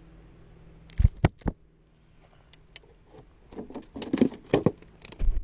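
Handling noise as a just-caught whiting is held, unhooked and put into a cooler of ice: three sharp knocks about a second in, then a run of knocks and rustling near the end.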